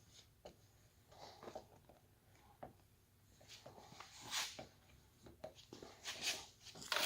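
Squeegee rubbing over wet paint protection film along a hood edge in short, irregular strokes, pushing out the alcohol slip solution trapped under the film. The loudest strokes come about four seconds in and near the end.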